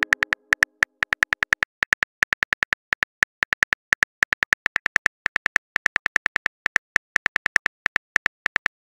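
Smartphone keyboard typing clicks, a quick run of short high ticks at about seven a second with brief pauses, as a message is typed out. The ringing tail of a message-received chime fades out in the first second.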